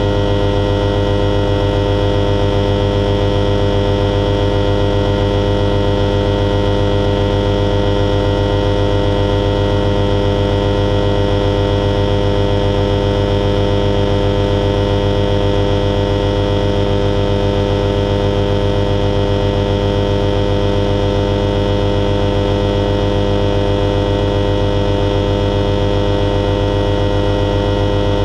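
Self-launching motorglider's engine and propeller running steadily under power, heard from inside the cockpit: a loud, unchanging hum with a fast even pulse.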